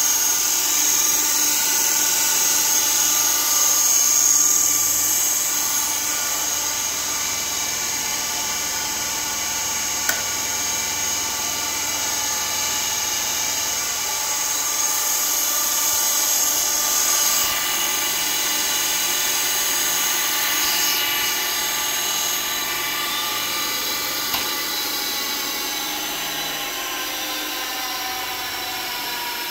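THÖRN T2 tool and cutter grinder running: a steady high-pitched machine whine made of several even tones from its motor and grinding spindle, sagging slightly in pitch near the end.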